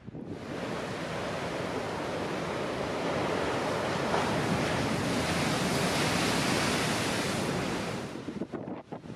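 A large storm wave breaking in heavy surf. The rush of water starts suddenly, builds to its loudest in the middle and dies away near the end, leaving wind gusting on the microphone.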